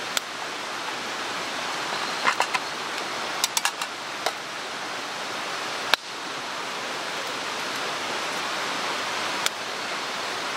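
Steady rush of a mountain stream, with a wood campfire crackling over it: scattered sharp pops, several in quick succession in the second to fourth seconds, one more a little before six seconds and another near the end.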